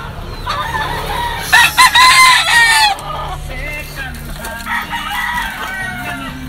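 Rooster crowing: one loud crow starting about a second and a half in and lasting about a second and a half, followed by fainter crowing a couple of seconds later.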